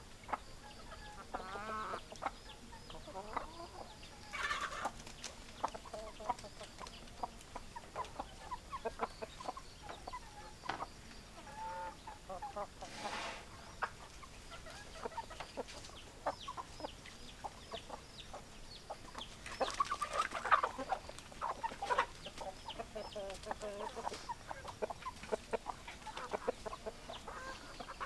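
A flock of chickens clucking, with many short overlapping calls and a few louder squawking flurries.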